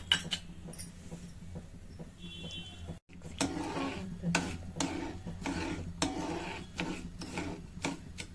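A kitchen utensil clicking and scraping against a pan of jaggery and water, in irregular taps from about three seconds in; before that only a faint steady hum and a single click.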